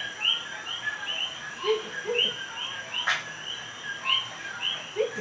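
A night chorus of small frogs calling outside: short rising chirps, overlapping and repeating a couple of times a second. A sharp click comes about three seconds in, and there are a few brief low squeaks.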